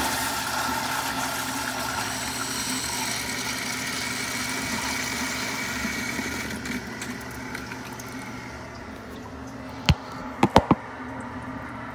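FlushMate 503 pressure-assist toilet: the tail of a flush, then the pressure vessel refilling with a steady hiss that slowly fades away. Near the end, four sharp knocks and clinks, the first on its own and the other three close together.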